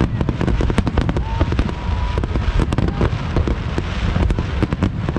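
Aerial fireworks display: a dense, unbroken run of overlapping bangs and crackles from shells bursting, several sharp reports every second.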